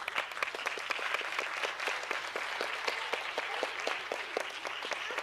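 Audience applauding: many hands clapping at once, steady for several seconds.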